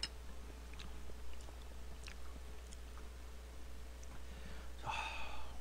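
A person chewing a mouthful of rice soaked in samgyetang (chicken soup) broth, with faint clicks of a spoon in the bowl. There is a short louder sound near the end.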